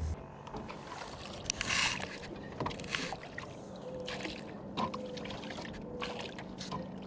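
Small boat sitting on the water, with light splashing and scattered knocks and clicks of fishing gear against the hull. A low hum cuts off right at the start.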